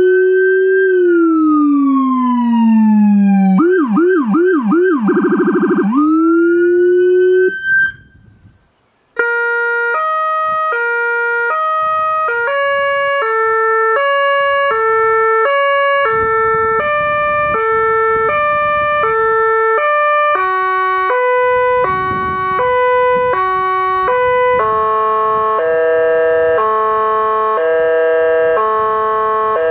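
Whelen Carbide electronic siren playing a programmed sequence of tones. First a wail falls, switches to a fast yelp, then sweeps up in a piercer, with the Howler low-frequency speaker adding a deep undertone. After a short break around 8 s, a stepped multi-note Austrian ambulance tone plays, and near the end it changes to a hi-lo air-horn tone.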